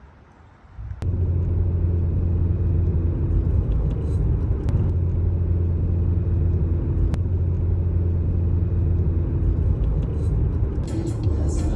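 Steady low rumble of a car in motion, heard from inside the cabin, starting suddenly about a second in.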